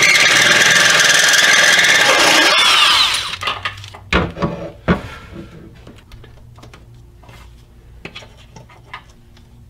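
Power drill with a hole saw cutting through the sheet-metal inner fender, running loud and steady for about three seconds and then winding down. It is followed by two sharp knocks and light clicking of parts being handled.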